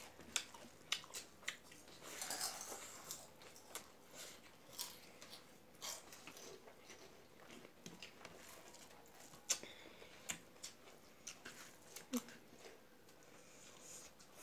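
Close-miked eating sounds: fingers mixing rice in a steel plate, with chewing and scattered sharp clicks.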